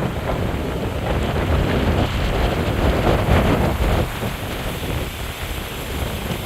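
Storm wind buffeting the microphone: a dense, rumbling wind noise, heaviest in the low end, that gusts harder a couple of seconds in and eases slightly after.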